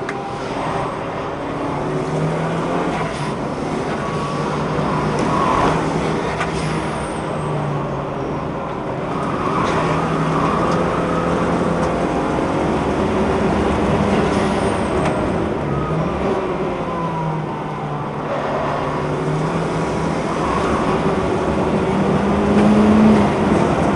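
Car engine being driven hard on a race circuit, revs rising and dropping repeatedly through gear changes and corners.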